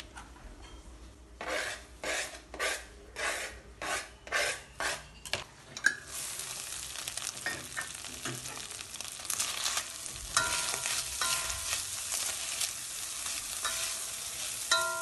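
Ground meat frying in a pan: a steady sizzle from about six seconds in, with a spatula scraping and clinking against the pan. Before that comes a run of about nine short scraping strokes, about two a second.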